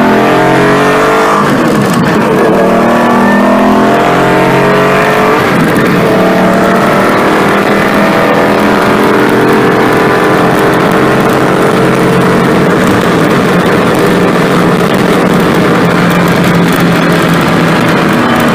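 Classic Porsche 911's air-cooled flat-six engine heard loud from inside the cabin under hard acceleration on track. The revs drop and climb again twice, about a second and a half in and again around five seconds in, as gears change, then it holds a long steady pull.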